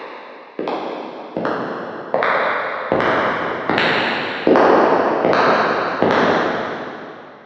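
Footsteps walking at a steady pace, about one step every three-quarters of a second, each step echoing. The steps grow louder as they approach, then stop about six seconds in and the last echo fades out.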